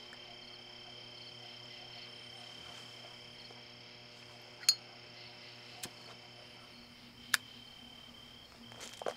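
Steady low electrical hum under crickets chirping, a quiet night ambience. Three sharp clicks in the second half, and a brief soft noise near the end.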